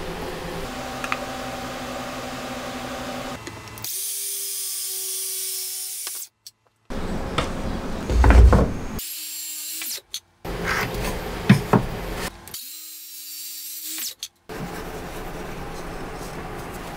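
Wooden boards being handled, slid and set down on a cutting mat, with two loud knocks about halfway through. Between them run short stretches of a steady hum with hiss, broken by abrupt cuts.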